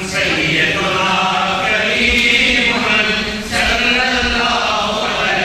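A crowd of men chanting together in continuous devotional recitation.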